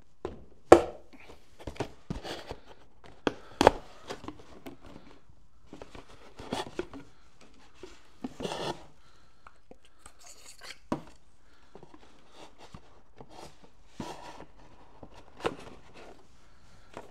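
A long screwdriver stabbed and pushed through a cardboard box, with sharp punching cracks and the crunch and tear of cardboard. Several sharp stabs come in the first few seconds, the loudest about a second in, then scattered scraping and knocking as the box is handled.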